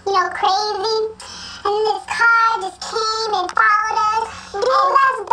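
Girls' voices sped up into high-pitched chipmunk voices, talking in short sing-song phrases.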